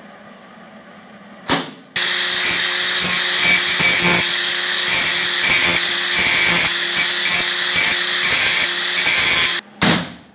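Angle grinder with a flap disc grinding the metal edge of a door beside the latch. It spins up briefly about a second and a half in, then runs steadily under load for about seven and a half seconds, stops, and gives one more short burst near the end.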